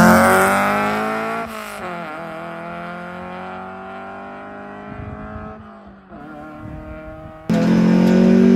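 Honda B16A2 four-cylinder engine with an Integra Type R header and Fujitsubo muffler revving hard under acceleration, its pitch climbing. After about a second and a half the pitch and loudness drop suddenly, and the engine runs quieter with its pitch slowly falling. Near the end it comes back much louder and higher.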